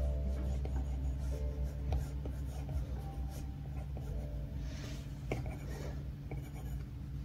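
Stylus tip tapping and stroking across an iPad's glass screen, a run of short scratchy strokes, over faint background music.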